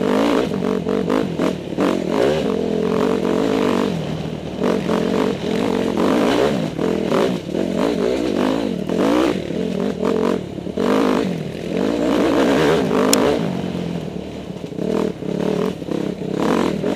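Dirt bike engine running with the throttle opened and closed over and over, its pitch rising and falling every second or two, with scattered knocks and rattles from the bike over rough ground.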